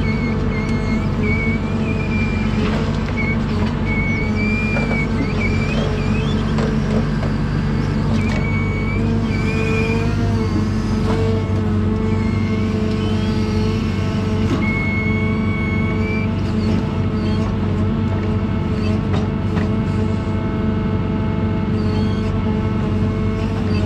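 John Deere 1010G forwarder's diesel engine running at a steady speed. A high whine comes and goes over it several times, wavering slightly in pitch, with a few scattered clicks.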